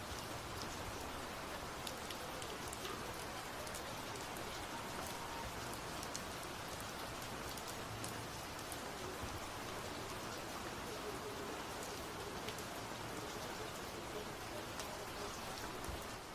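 Steady rain falling, with the fine patter of many drops striking a surface.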